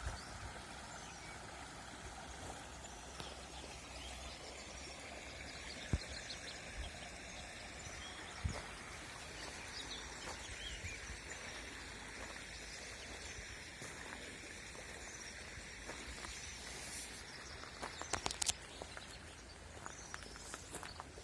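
Guadalmedina river water running steadily, with small birds chirping over it. A few sharp knocks stand out, most of them close together about eighteen seconds in.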